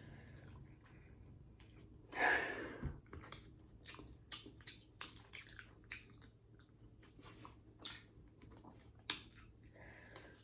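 Close-miked chewing and mouth sounds of someone eating seafood boil: a run of short, wet clicks and smacks. A longer, louder crunchy rustle comes about two seconds in.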